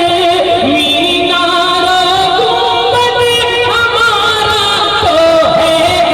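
Naat singing: layered voices hold long, wavering wordless notes in a slow melody that steps from note to note.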